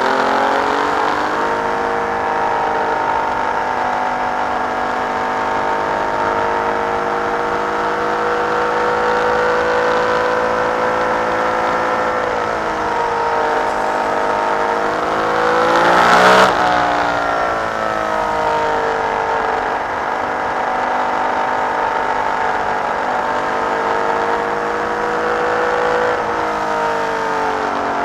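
Ferrari 312B's flat-12 racing engine at speed, heard from the cockpit, its revs climbing and dropping over and over through gear changes. About sixteen seconds in, the pitch swoops down and then sharply up in the loudest moment of the run.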